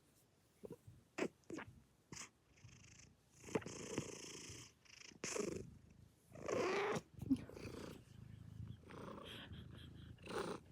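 A cat snoring in its sleep: three slow, drawn-out snoring breaths a couple of seconds apart, after a few soft clicks near the start.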